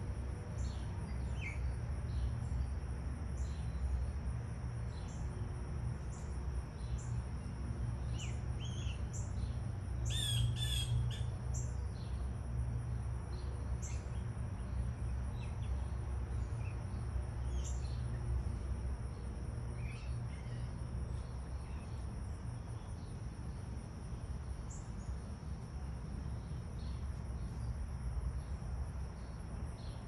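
Insects trilling in a steady high buzz, with scattered bird chirps and one louder burst of bird calls about ten seconds in, over a steady low rumble.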